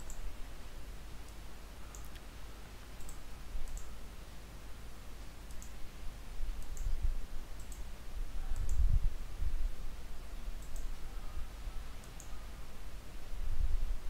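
Computer mouse clicks, about ten short, sharp ticks spread unevenly, over a low background rumble.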